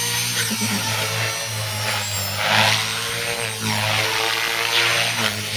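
A small motor running steadily with a buzzing hum. A hiss above it swells and fades every second or so.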